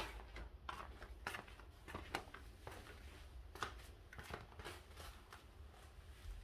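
Quiet, irregular light clicks and rustles, one to three a second, of a person moving about and handling wet water-ski gear.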